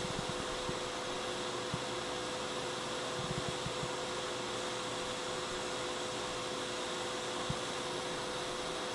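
Hot air rework station blowing at its highest air and temperature setting: a steady rush of air with a steady hum under it, as it heats a chip to melt stubborn lead-free solder for removal.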